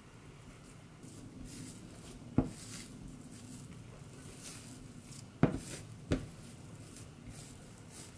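Cardamom-bun dough being kneaded by hand on a countertop as butter is worked into it: soft rubbing and squishing, with three sharp knocks of the dough or hand against the counter, the second and third close together.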